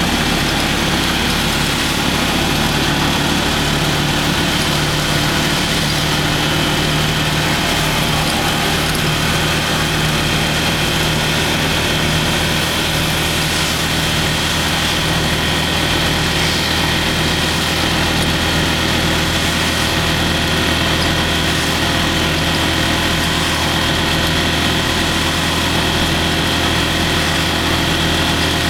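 A vehicle's engine running steadily with a constant low drone, heard from inside the vehicle, over an even hiss of rain and wet road.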